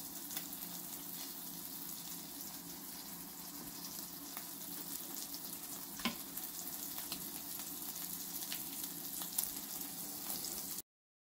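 Fish fillets sizzling in a frying pan: a steady hiss with scattered small crackles and one sharper click about six seconds in, stopping abruptly near the end.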